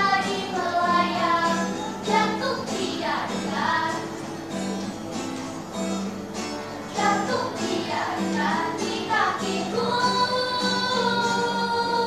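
A small group of girls singing together in unison, accompanied by an acoustic guitar. Near the end they hold one long note.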